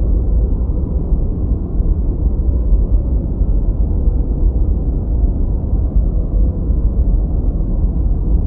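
Steady synthetic noise of the kind played for focus and sleep, deep and dull in tone: it sits in the bass and fades out above the middle range, closer to brown noise than to true white noise. It keeps an even level without any change.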